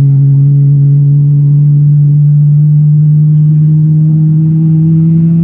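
Boeing 777 jet engines heard from inside the cabin: a loud, steady low hum with overtones that rises slowly in pitch as the engines spool up.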